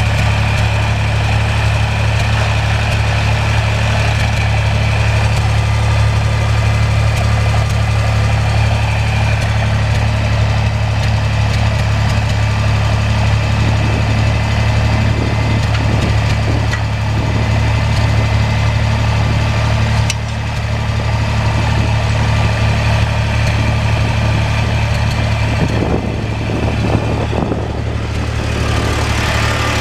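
1973 Massey Ferguson 135 tractor engine running steadily at idle.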